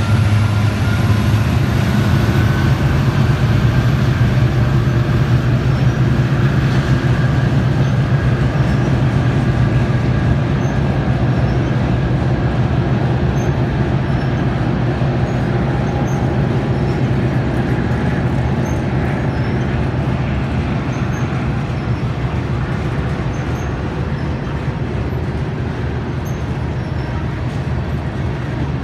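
Freight cars rolling past on the rails: a steady, loud rumble and clatter of steel wheels on track, easing slightly quieter toward the end.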